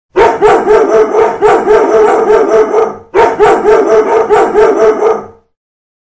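Recorded barking of several dogs played as a timer alarm, marking the end of the countdown: rapid, overlapping barks in two bursts, the first about three seconds long and the second about two and a half, with a short break between.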